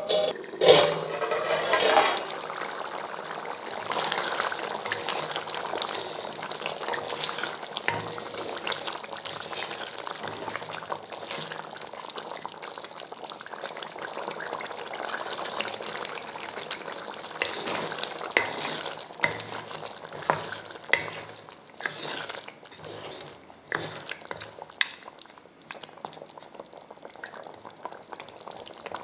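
A steel lid clatters off a metal pot in the first two seconds. Then thick curry gravy simmers and bubbles in the pot, with scattered small pops and clicks, and a spatula stirs through it near the end.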